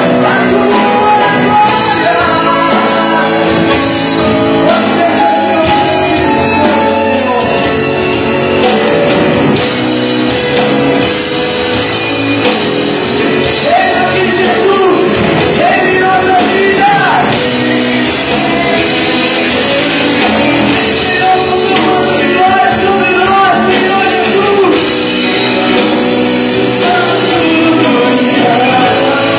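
Live Christian worship song: voices singing over a band accompaniment, continuous and loud, echoing in a large hall.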